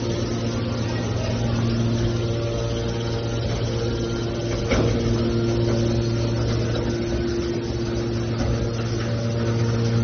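Hydraulic scrap metal baler's power unit running with a steady low hum. A single sharp knock comes about five seconds in.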